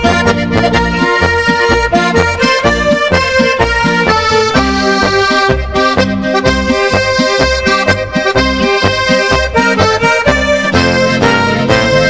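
Instrumental passage of a Tyrolean folk march, led by a diatonic button accordion over a steady march beat in the bass.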